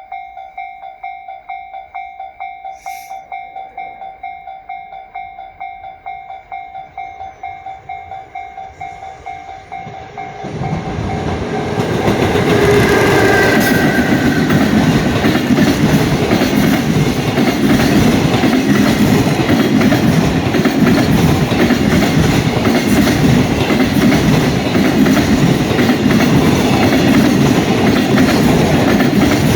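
Japanese level-crossing warning bell clanging about twice a second. About ten seconds in, a JR Freight train arrives and passes at speed, its loud rumble and rhythmic wheel clickety-clack covering the bell.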